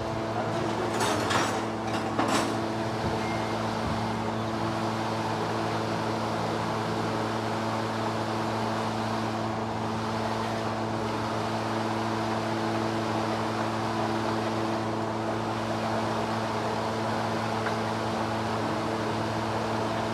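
Car engine running steadily, with a few sharp metallic knocks about one to two seconds in.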